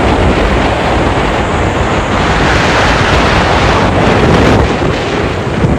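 Wind buffeting a phone's microphone on a moving scooter: a loud, even rush with no clear engine note.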